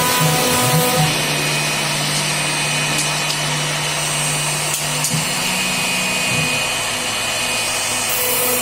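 CNC router spindle running steadily while cutting an MDF sheet, a continuous machine whine over cutting noise; its tone shifts about a second in.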